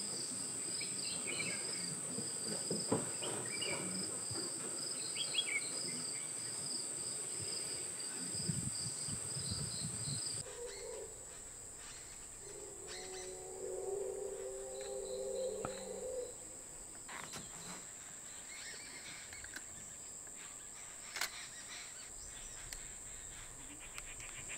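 Steady high-pitched insect drone, with a second, pulsing insect call for roughly the first ten seconds and a few faint bird chirps. A low hum with overtones sounds for about three seconds around the middle.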